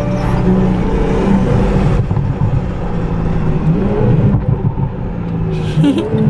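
2018 BMW 340i's turbocharged 3.0-litre inline-six running through an Agency Power short ram air intake, its engine note rising and falling with the throttle.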